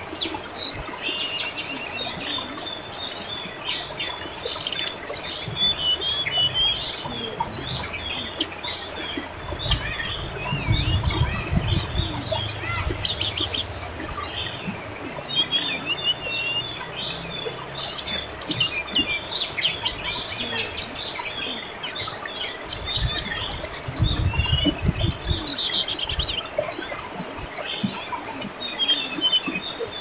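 Many birds chirping and trilling at once, calls overlapping without a break, over a steady murmur of river water. A low rumble comes in twice, around ten seconds in and again about twenty-four seconds in.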